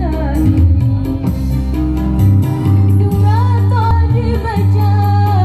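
Girls' choir singing a melody over musical accompaniment with a steady beat and heavy bass, carried over a loud sound system.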